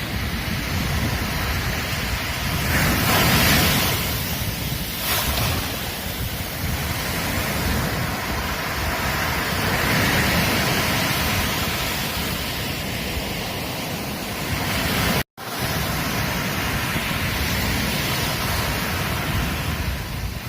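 Ocean surf breaking and washing up a beach in a continuous hiss, swelling louder about three seconds in and again near ten seconds. The sound cuts out completely for a split second about fifteen seconds in, then resumes.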